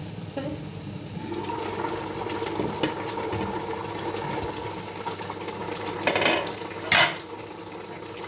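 Beef tongue stew simmering in a pot with the lid off, stirred with a wooden spatula; two louder strokes of the spatula against the pot near the end.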